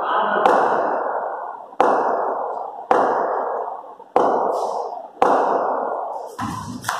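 Six sharp knocks from indoor cricket play, about one a second, each ringing out in a long echo through a large bare hall.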